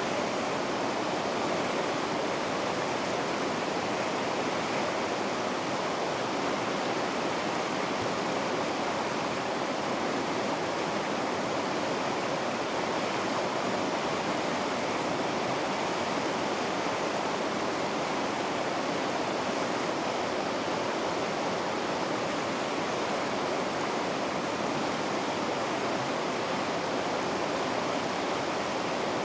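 River rapids rushing over rocks: a steady, even roar of white water that does not change.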